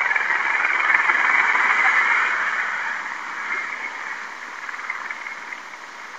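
An aircraft passing overhead: a broad rushing noise that swells over the first two seconds, then slowly fades away.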